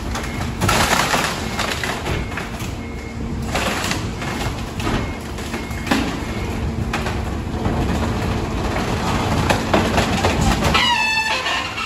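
Wooden boards and plywood cracking and splintering as they are crushed in the hopper of a Mack Leach rear-loader garbage truck, over the steady hum of the truck's engine and packer hydraulics. A squeal rises in pitch near the end.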